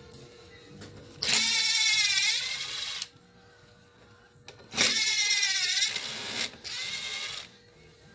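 Power drill running in three short bursts, its motor whine sagging in pitch and recovering as it loads.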